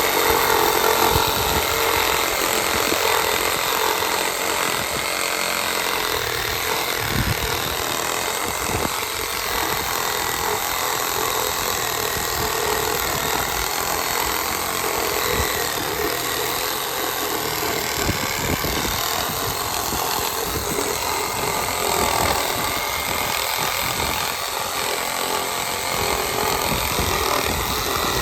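Cheap reciprocating saw running steadily and cutting through a thick dead branch, the motor's whine over the rasp of the blade in the wood.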